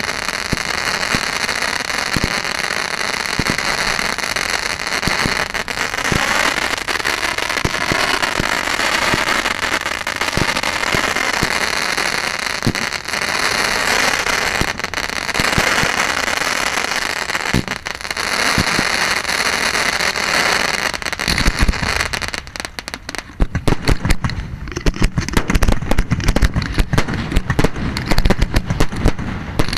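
Aerial fireworks display: a steady hiss with scattered single bangs for about twenty seconds, then a rapid, dense volley of shell bursts from about three-quarters of the way in.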